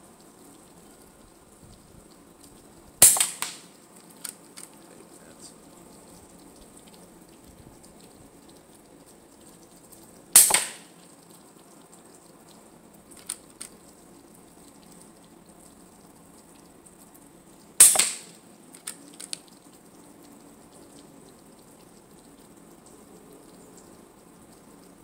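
Three shots from a Hatsan Jet 2 air rifle, about seven seconds apart, each a sharp crack followed by a couple of faint ticks.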